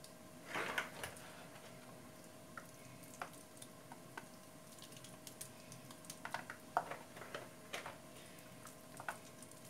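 Faint wet squishing and small clicks as bare hands pack a chopped onion stuffing into raw whole fish in a plastic basin. There is a louder squelch about half a second in and a cluster of clicks a few seconds before the end, over a faint steady hum.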